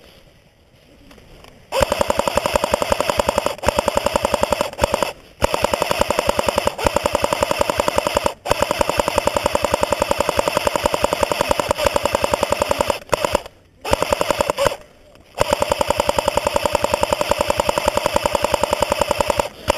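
Cyma AK74M airsoft electric gun firing long full-auto bursts: a fast rattle of the gearbox cycling over a steady motor whine. It starts about two seconds in and stops briefly a few times, near 5, 8 and 14 seconds in.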